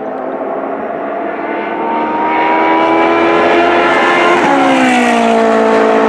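Ferrari 458 Challenge race car's V8 engine at high revs, its note rising and growing louder as it approaches. About four and a half seconds in the pitch drops sharply as the car passes close by, then holds lower as it goes away.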